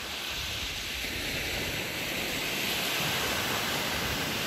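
Steady rush of surf on a sandy beach, with wind rumbling on the microphone; the rush swells slightly toward the middle.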